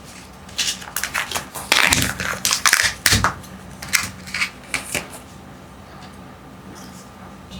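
Kinder Joy packaging being handled and torn open: a quick run of crinkles, crackles and clicks that lasts about four seconds and stops around five seconds in.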